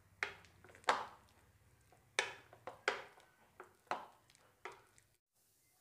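A steel utensil knocking against a ceramic bowl while it mashes boiled cassava: about eight sharp, irregular knocks, each with a short ring. The sound cuts off suddenly about five seconds in.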